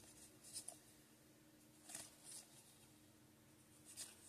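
Faint rustle of a stack of Studio baseball cards being thumbed and slid against one another in the hands, a few brief soft swishes about half a second, two seconds and four seconds in, over near silence.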